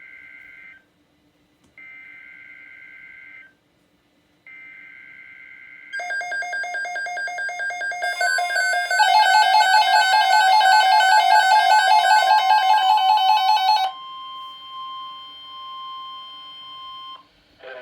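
Emergency Alert System tones: three short bursts of warbling data tones (the SAME header), about a second apart. About six seconds in, a loud, harsh multi-tone attention signal with a fast pulsing edge starts and grows louder. Near the end it drops to a single steady tone that holds for about three seconds.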